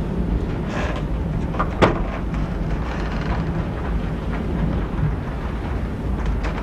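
Steady low rumble of storm weather heard inside a ship's cabin, wind and sea noise, with one sharp knock about two seconds in.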